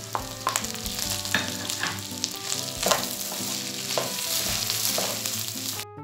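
Rice frying in oil with onion, chicken and raisins in a pot, sizzling while a wooden spoon stirs it, with irregular scrapes of the spoon against the pot.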